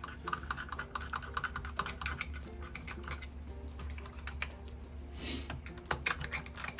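Quick, irregular small clicks and taps of hand tools and small parts being handled while the recoil starter goes back onto a Skilsaw 1616 chainsaw.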